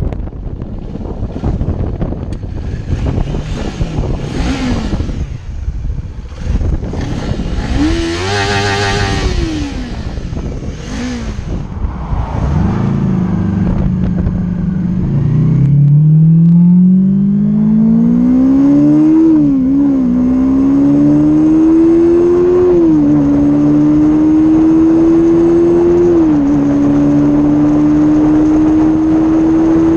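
Kawasaki Z400 parallel-twin engine with its stock exhaust, under wind buffeting on the microphone. For the first half there is mostly wind noise with a few brief rises and falls in engine pitch; from about halfway the engine pulls hard with a rising pitch, drops back three times at upshifts, then holds steady at high revs.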